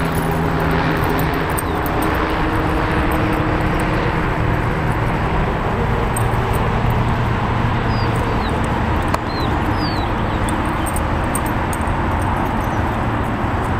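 Steady, loud rumbling background noise with a low hum, and a few short, high rising chirps about eight to ten seconds in.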